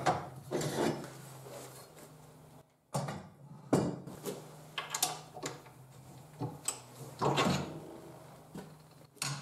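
A secondary guard is handled and fitted onto an angle grinder, with a string of separate knocks, clunks and rattles, about eight in all, over a faint steady low hum. The grinder is not running.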